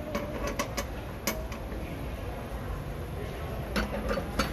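Light metallic clicks and clinks of gas-stove burner heads and caps being lifted off and set back onto their burner bases, irregular, with several in the first second and a half and a cluster near the end. A low steady hum lies underneath.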